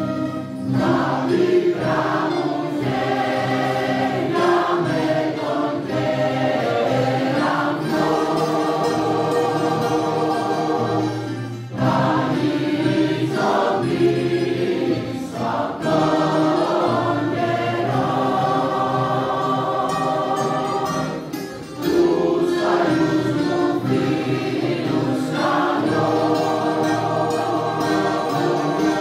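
Mixed choir singing with a mandolin ensemble of mandolins, guitars and an accordion accompanying. Held notes break briefly between phrases about twelve and twenty-two seconds in.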